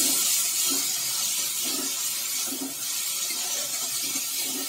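Onion-and-spice masala paste sizzling in hot oil in a frying pan while a spoon stirs and scrapes through it about once a second. The masala has reached the stage where the oil is separating at the sides.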